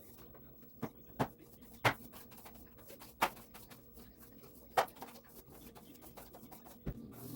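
Scattered sharp knocks and clatter from household cleaning, about one every second, over a faint steady hum.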